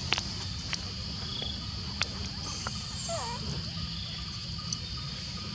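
Steady high-pitched insect chorus over a low rumble, broken by a few sharp clicks in the first two seconds and a short wavering call about three seconds in.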